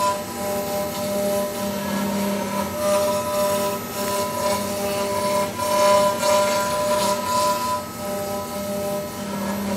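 5-axis CNC milling machine cutting laminated katsura wood: a steady spindle whine with the rasp of the end mill on the wood, growing louder and softer as the cutter moves across the carving.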